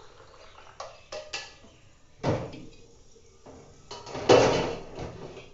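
Steel kitchen utensils knocking: a few light taps, then two loud clanks of a steel saucepan and its lid being set on a gas stove, about two seconds in and about four seconds in, the second ringing briefly.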